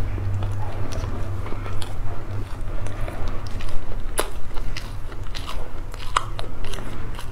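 Close-miked chewing of a sachima bar, soft mouth sounds broken by scattered sharp crunches. The loudest crunch comes about four seconds in and another about six seconds in.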